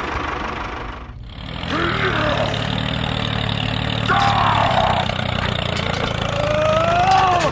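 Tractor-style engine running steadily, dipping briefly about a second in, with a few rising and falling squealing tones over it.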